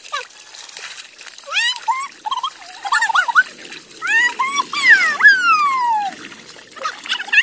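Children shouting and squealing while splashing in a shallow pool of muddy water. A long, falling squeal about five seconds in is the loudest sound, over a wash of splashing.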